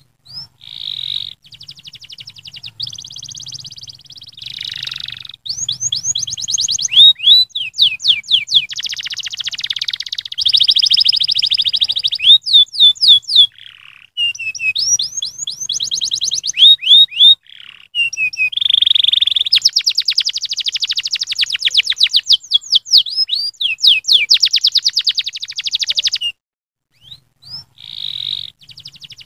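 Domestic canary singing a long, loud song of rapid trills and fast repeated falling chirps, broken by a brief pause near the end before it starts again.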